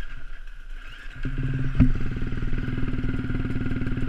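Dirt bike engine idling with a steady, rapid putter that grows louder about a second in. A single sharp click comes shortly after.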